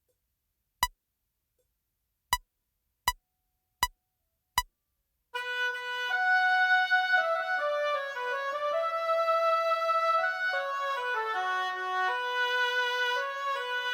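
A metronome count-in of five clicks, the last four quicker, then a synthesizer pad enters about five seconds in with sustained chords and a stepwise melody line. There is no bass or drums.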